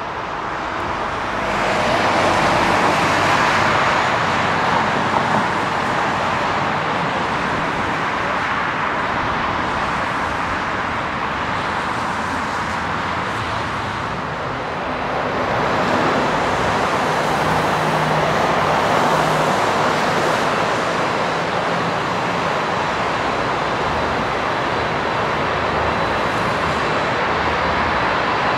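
Jet airliner engine roar: a Boeing 737-800 climbing out after takeoff, the noise swelling about a second and a half in. About halfway through, a four-engine Boeing 747-400 takes over, its engines running as it taxis, with the roar swelling again.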